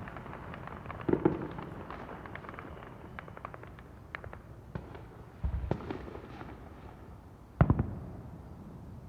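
Fireworks going off: a boom about a second in, another at about five and a half seconds and the loudest near the end, with a run of quick crackling pops between the first two.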